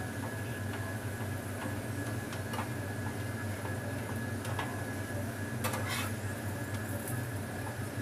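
Metal spatula tapping and scraping on a flat frying pan as a flipped flatbread is pressed down to brown, a scattering of light clicks with a cluster about six seconds in, over a steady low hum.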